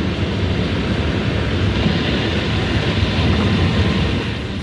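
Steady road and wind noise of a moving car, with wind buffeting the microphone.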